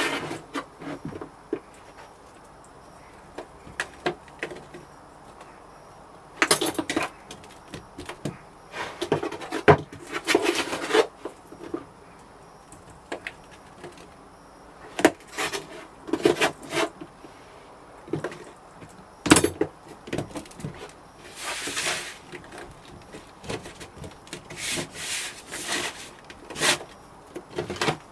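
Irregular scraping and rubbing by hand, in short bursts of a second or so separated by pauses, with a few sharp knocks among them.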